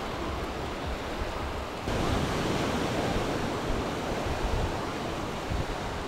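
Small Mediterranean waves breaking and washing up on a sandy shore, a steady surf hiss. Wind buffets the microphone with a choppy low rumble. The surf gets louder about two seconds in.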